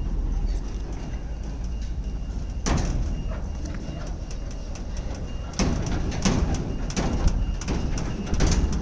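Heavy diesel truck engine running with a steady low rumble as the truck moves slowly. Several short sharp noises cut in, one about three seconds in and a cluster in the second half.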